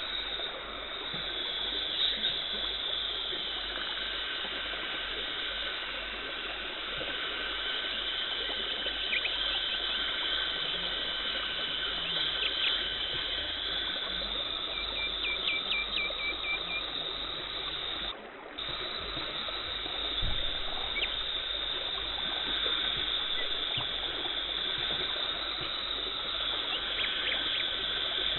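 Dental suction and water spray running during a teeth cleaning to remove tartar: a steady, watery hiss with a few faint clicks, cutting out for a moment about two-thirds of the way through.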